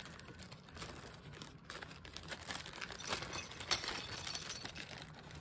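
Plastic zip-top bags crinkling and rustling as they are handled and one is lifted out of the box, a continuous run of small crackles.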